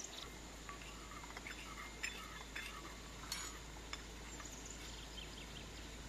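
Metal spoon stirring in a ceramic bowl, giving a few faint clinks, the sharpest about two seconds in and again just after three seconds.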